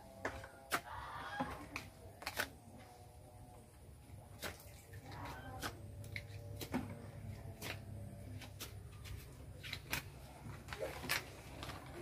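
Scattered sharp clicks and taps, about a dozen at irregular intervals, over a faint low hum.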